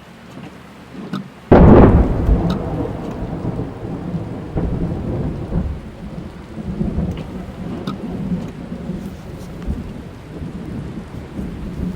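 A close clap of thunder, heard from inside a car, breaks suddenly about a second and a half in and then rumbles on, slowly fading. Rain falls on the car throughout, with single drops striking the roof and glass.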